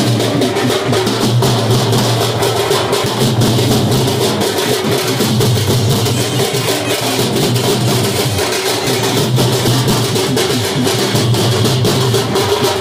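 A group of double-headed drums beaten with sticks, playing a fast, dense beat, over a steady low drone.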